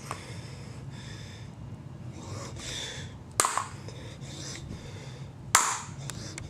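Hammer striking steel: two sharp blows about two seconds apart, each with a short ring, with faint handling rustle between them.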